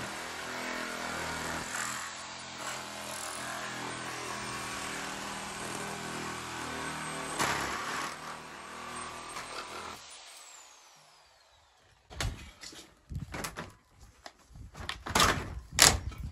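A power saw cuts through a UPVC conservatory frame post, its motor running steadily for about ten seconds before dying away. Then come a run of sharp knocks and clatters as the plastic frame is worked loose, the loudest near the end.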